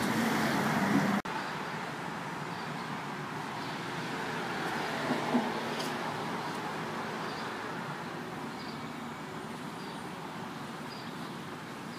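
Steady street traffic noise, the hiss and rumble of passing cars. It drops suddenly to a lower level about a second in and swells a little midway.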